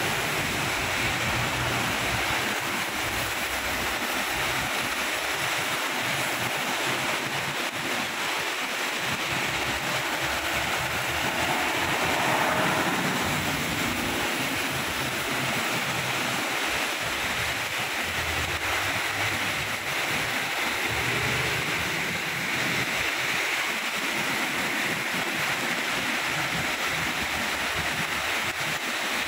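Steady heavy rain, a continuous hiss, with a low rumble of road traffic passing now and then.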